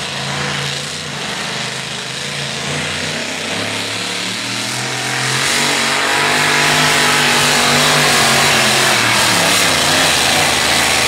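Supercharged engine of a two-wheel-drive pulling truck running hard under load as it drags the weight sled. The engine noise grows clearly louder about halfway through as the pull gets under way.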